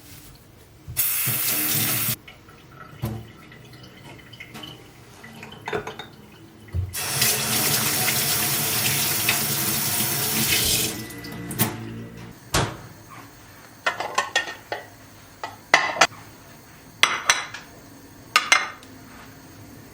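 A tap running into a sink, briefly about a second in and again for about four seconds in the middle, followed by a series of sharp clinks and knocks of objects being handled.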